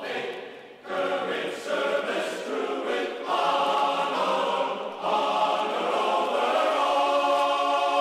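Background music: a choir singing long held chords that change every second or two.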